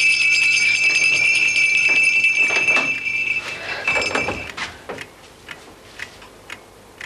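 A small bell ringing steadily with a bright, high tone for about three and a half seconds, then a second, shorter ring, with a few soft knocks around it.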